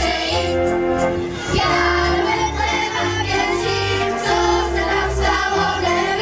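Children's choir singing a song through a PA system, over amplified instrumental accompaniment with a steady bass line.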